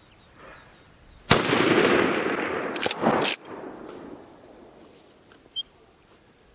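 A single 7.5x55 Swiss rifle shot from a Schmidt-Rubin G11 with a long echoing decay, followed about a second and a half later by a quick pair of sharp clacks.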